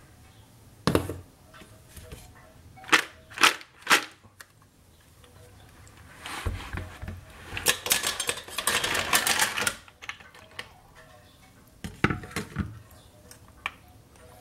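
Snail shells clattering as they are tipped from a plastic colander into a steel saucepan: a few separate knocks, then a dense run of clicks in the middle, then a few more knocks.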